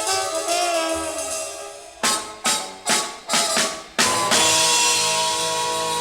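Music from a 1978 samba rock / black music vinyl LP: a melodic line, then four sharp accented band hits about half a second apart with drums, then a held chord.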